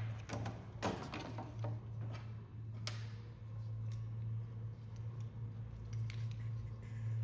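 Scattered light clicks and scrapes of hand work on the oar, over a steady low hum.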